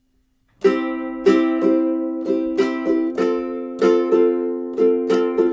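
Ukulele strummed in a steady rhythm, chords ringing, starting about half a second in after a moment of quiet.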